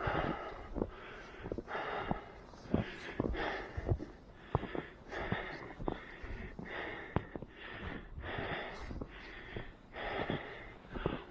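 A runner's heavy breathing, in and out roughly every three quarters of a second, over the quick, irregular thuds of footfalls in snow.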